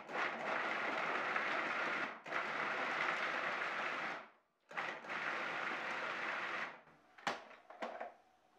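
Cuisinart food processor pulsed three times, each burst about two seconds long, its motor and blade chopping carrots and sweet potatoes. A few short clicks follow near the end as the lid is taken off.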